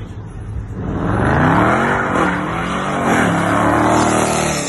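A car engine revving hard, its pitch swinging up and down, while the tyres squeal through a burnout of spinning donuts. The noise builds about a second in and cuts off abruptly near the end.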